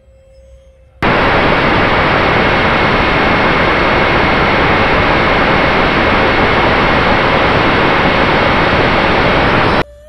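A loud, steady jet roar with a faint whine in it. It cuts in suddenly about a second in and stops just as abruptly just before the end.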